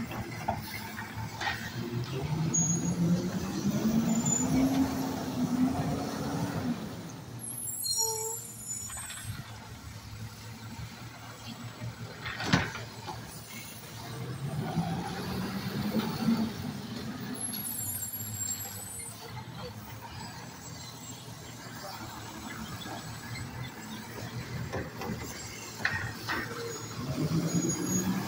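Automated side-loader garbage truck at work: its diesel engine revs up and back down three times as it powers the hydraulic arm that lifts and dumps carts. Short air-brake hisses with a squeal come twice in between, as the truck stops and pulls ahead to the next cart.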